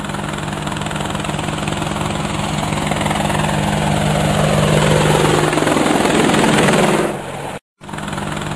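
Battlefield sound effect: a helicopter's rotor drone, steady and rhythmic, with a pitched sound falling steadily in pitch over several seconds as it grows louder. The sound drops off suddenly, cuts out for a moment and briefly comes back.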